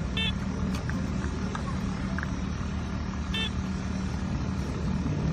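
Steady drone of a grass cutter's engine running throughout. Over it the MD-3009II metal detector gives a short high beep just at the start and another about three and a half seconds in, signalling a metal target over its search coil.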